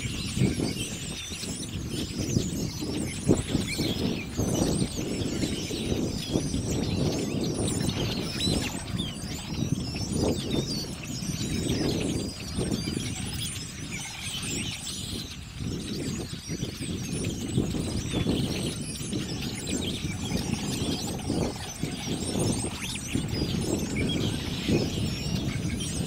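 A huge flock of blackbirds calling all at once: a dense, unbroken chatter of squeaks and chirps over a low rushing noise that swells and fades.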